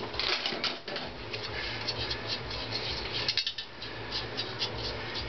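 Small metal hand tool clicking and scraping against a bare aluminium Honda CX500 crankcase half: a quick, uneven run of light ticks and scratches.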